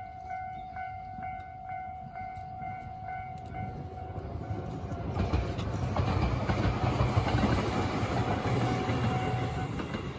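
Level crossing warning bell ringing in quick pulses, about two to three a second. A Watarase Keikoku Railway diesel railcar then passes over the crossing from about five seconds in, its engine rumble and wheel clatter loudest a couple of seconds later and drowning out the bell.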